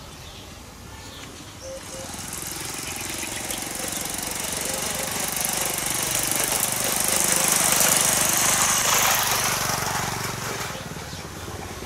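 A motor vehicle passing by with a rattling engine, growing louder to a peak about eight seconds in and then fading away.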